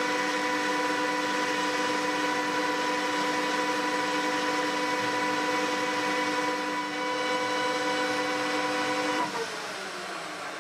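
Metal lathe running at a steady speed with a steady whine while it takes a light trial cut on a steel taper. About nine seconds in it is switched off, and the whine falls in pitch and fades as the chuck coasts down.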